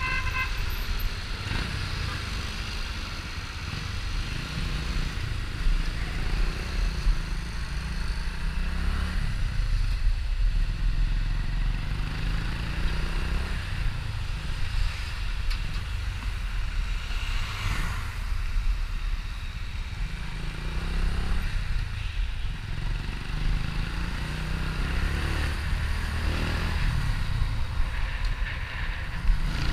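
Motorcycle engine running steadily as the bike is ridden along a city street, heard from a camera mounted on the bike, with a low rumble that rises and falls a little with the throttle.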